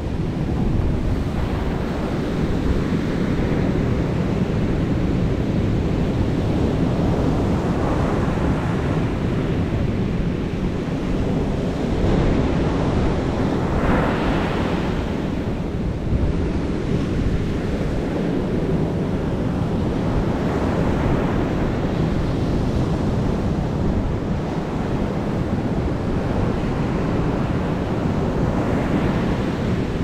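Ocean surf breaking and washing up a sandy beach: a steady roar that swells as a fresh wave comes in every six seconds or so, the strongest about fourteen seconds in. Wind rumbles on the microphone underneath.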